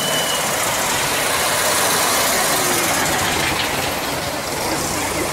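Air-cooled flat-four engines of vintage Volkswagen Beetles running as the cars drive slowly past, loud and steady.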